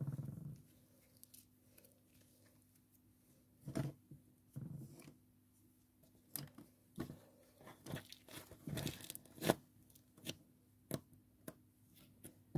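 Blue slime flecked with small beads being squished, stretched and pulled apart by hand: quiet, irregular little pops and crackles, coming in short clusters with pauses between them.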